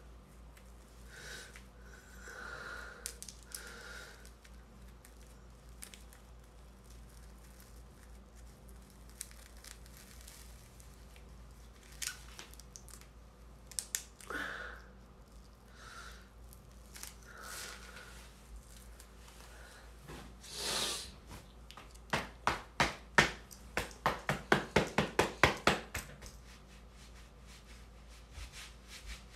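Soft rustling and scraping of a wig being worked loose and pulled off a head, then, near the end, a run of rapid rasping strokes, about five a second, for a few seconds.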